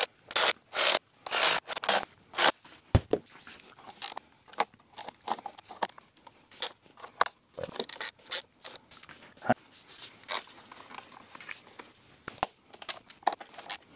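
Transmission oil pan bolts being run in with a ratchet and socket: a quick series of ratchet strokes, about two a second, over the first few seconds, then scattered clicks and taps of metal tools on the bolts.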